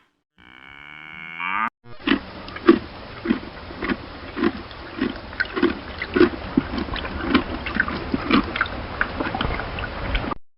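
Cattle: a short, pitched call with a full set of harmonics, then a long run of evenly repeated low sounds, about three every two seconds, over a low rumble.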